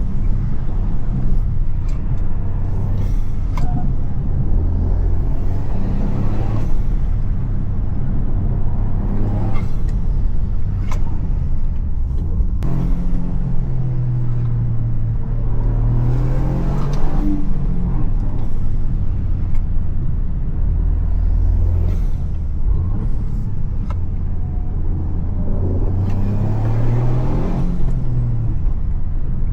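Toyota GR Yaris three-cylinder engine driven hard, its note climbing and dropping several times as it pulls through the revs, with a few brief sharp clicks along the way.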